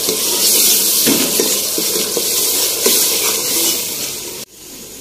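Onion and ginger-garlic masala sizzling hard as it fries in hot ghee in an aluminium pressure cooker, with a few light scrapes and clicks from a steel spoon stirring it. The sizzle cuts off abruptly near the end.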